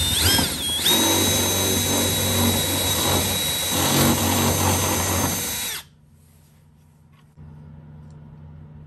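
Milwaukee cordless drill driving a step drill bit through thin aluminium sheet: a steady high motor whine over the grinding of the cut. The pitch wavers briefly near the start, and the drill stops suddenly about six seconds in.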